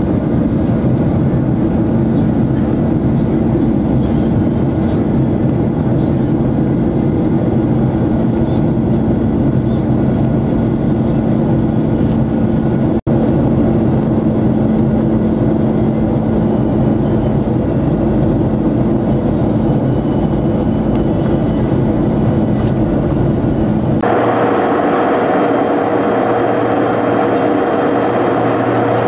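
Steady engine and air noise inside a jet airliner's cabin in flight, with a low hum running through it. It drops out for an instant about halfway through, and near the end the sound changes abruptly, losing its deepest part and taking on a higher steady hum.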